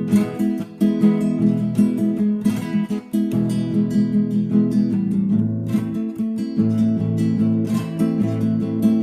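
Mariachi-style music on strummed acoustic guitar, chords played in a steady, rapid rhythm.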